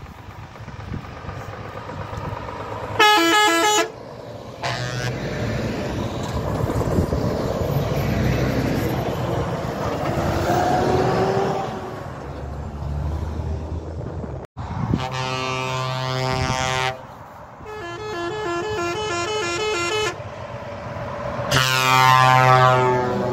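Semi-trucks' air horns sounding as the trucks drive past in convoy: several long blasts, some warbling between tones and one falling in pitch as its truck passes. Between the blasts, diesel engines run as the trucks go by.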